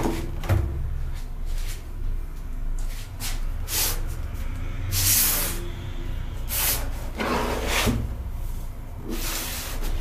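Cardboard iPad Pro retail box being handled, turned and slid across a wooden desk: a series of brushing, scraping swishes over a steady low hum.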